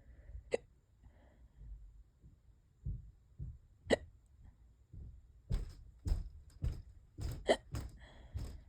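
A person hiccupping in a persistent bout: short, sharp hiccups, two spaced a few seconds apart at first, then coming quickly, about two a second, through the second half.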